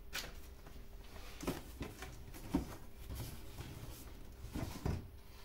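Cardboard box and paper packaging being handled: a few short soft knocks and rustles, scattered irregularly.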